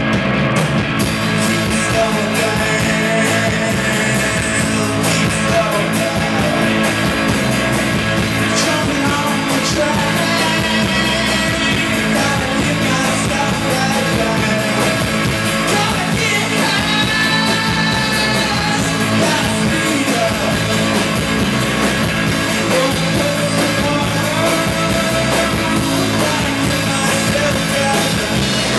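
Live rock band playing loudly: electric guitar, electric bass and drum kit, with a singer's voice.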